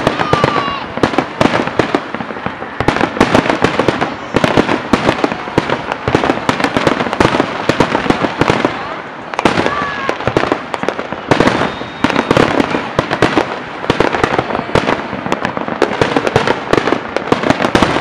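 Fireworks display: dense, rapid crackling and popping from crackling-star shells bursting overhead, easing briefly a couple of times before picking up again.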